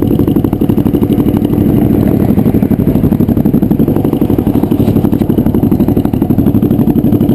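Kawasaki Ninja 250R's parallel-twin engine running at low, steady revs through a nearly straight-piped DanMoto exhaust, a loud, rapid throb with no revving.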